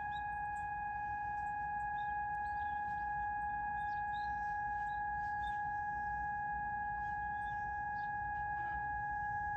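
Disaster-warning siren sounding a drill, holding one steady tone at a constant pitch with no rise or fall. Faint short high chirps are scattered over it.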